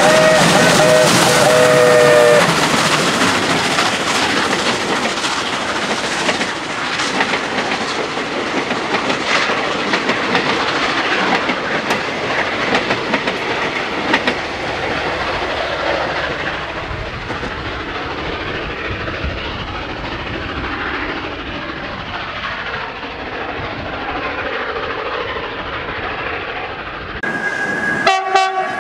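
SAR Class 19B steam locomotive's whistle sounding a steady chord for about two seconds at the start, followed by its train of passenger coaches rolling past, wheels clicking over rail joints, slowly fading as the train draws away. Near the end the sound changes abruptly to a different high horn-like tone.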